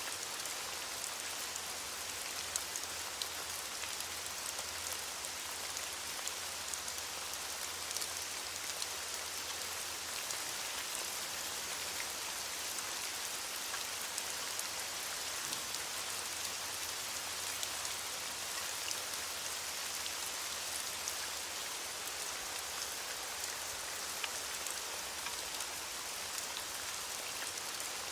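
Steady rain pattering, an even hiss with many sharp individual drop hits, with no thunder.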